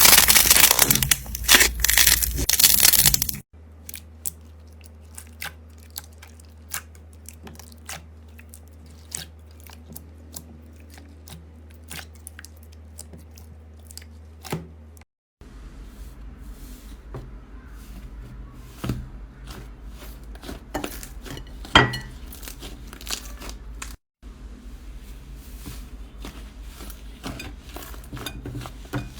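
Slime being squeezed, poked and stretched across several short clips: loud dense crunching at first, then quieter crackles and small sharp pops, over a low steady hum in the quieter clips.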